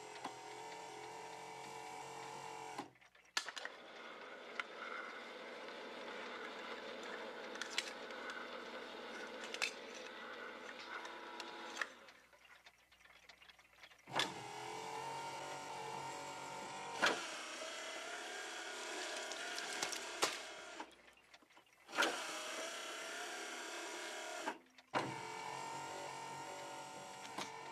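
Small electric motors whirring as a mechanical arm swings a dog-food can to an electric can opener, which cuts it open. The whirring runs in several spells, with short stops and a few sharp clicks between them.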